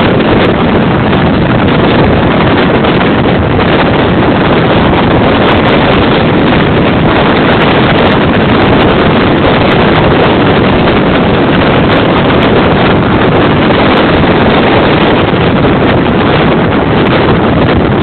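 Strong wind blowing across the microphone: a loud, steady, rushing noise with no break.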